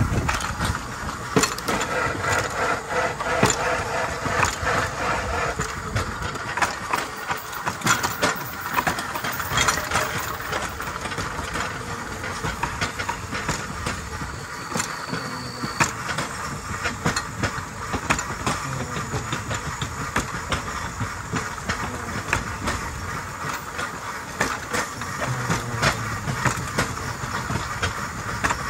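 Pedal rail bike's steel wheels rolling along old jointed railroad track: a steady rolling rumble and rattle with irregular sharp clicks and clacks as the wheels cross rail joints and rough spots on the lightly maintained line.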